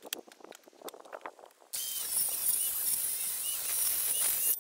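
A few light knocks and clicks of the board and saw being handled, then, under two seconds in, a DeWalt circular saw runs loudly, cutting lengthwise into a spruce board held in a kerfing jig for resawing. The saw noise cuts off suddenly at the end.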